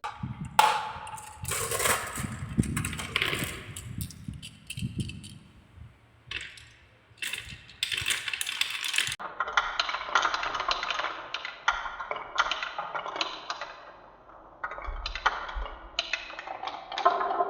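Marbles rolling and clattering down a wooden marble run, a quick, irregular run of clicks and knocks, some with a short ringing tone.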